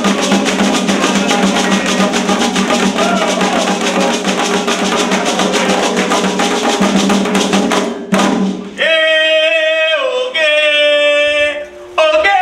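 Candomblé atabaque drumming, fast and dense, with voices singing over it. About eight seconds in the drums stop suddenly, and a single voice sings on unaccompanied in short phrases.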